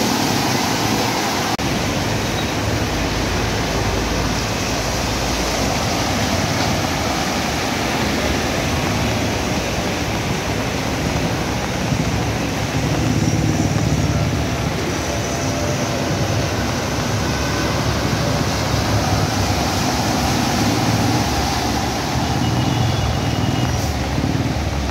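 Road traffic driving through a flooded street: engines running over a steady rush of water and noise. A deeper engine rumble swells as a heavy vehicle passes, about halfway through and again later.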